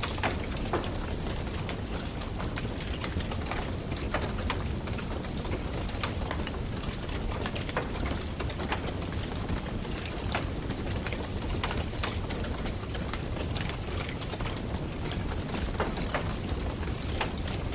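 Wood campfire burning, with many small irregular crackles and pops over a steady hiss.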